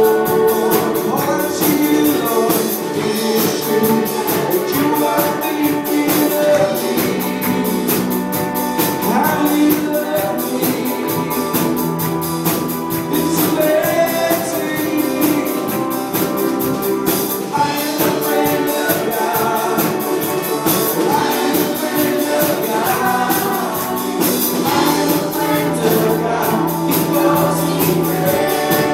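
Live church worship band playing an upbeat gospel song: voices singing over electric guitar, keyboard and drums, with a fast, even ticking beat.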